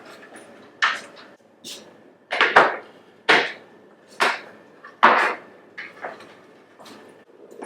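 A series of sharp knocks on hard objects, about one a second, some much louder than others.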